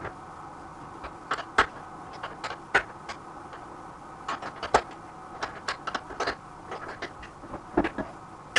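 Socket and small ratchet wrench clicking and clinking on a bicycle's steel crank arm bolt: irregular metal clicks and taps, a few sharper ones, over a faint steady hum.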